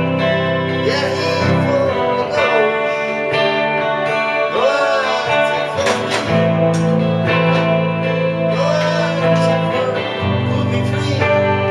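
Electric guitar playing a tune: melody notes, some of them wavering and bending in pitch, over low notes held for a few seconds at a time.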